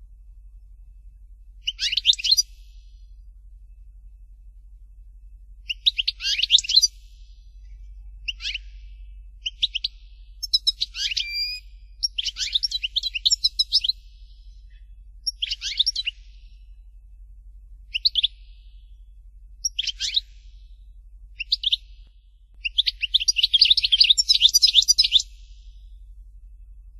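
European goldfinch singing: a string of short, rapid twittering phrases with pauses of a second or two between them, and a longer run of song near the end.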